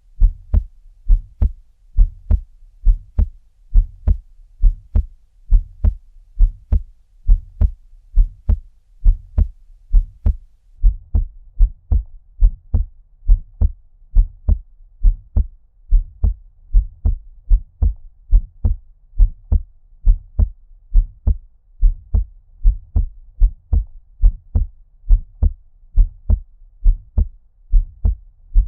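A heartbeat at a normal resting rate: a steady lub-dub of paired deep thumps, about one beat a second. It is muffled, as if heard under water.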